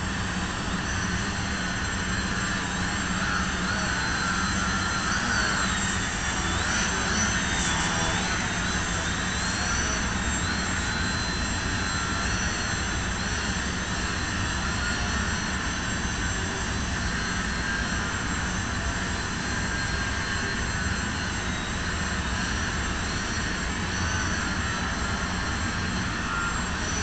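Small electric motor and propeller of an indoor radio-controlled foam aerobatic plane whining as it hovers nose-up. The pitch wavers up and down with the throttle, most markedly in the first third.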